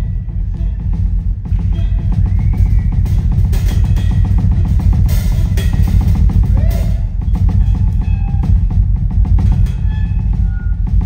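Solo jazz drum kit played loud and busy: dense, very rapid strokes on snare and toms, with bass drum underneath and cymbals ringing. The passage thickens into its densest stretch about a second and a half in.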